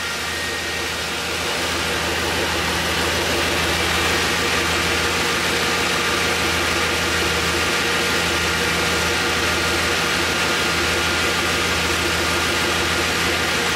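502 cubic-inch big-block V8 on Holley Sniper throttle-body fuel injection idling steadily at about 770 rpm, warmed up and running in closed loop.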